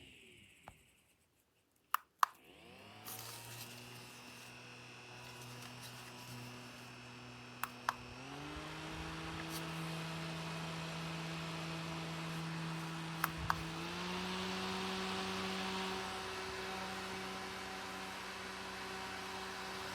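Clip-on USB mini fan dying away to a stop, then a double click of its button about two seconds in starts the motor on its lowest speed. Two more double clicks, about six seconds apart, step it up to its middle and then its strongest setting. The pitch of the motor's steady sound rises a notch with each step.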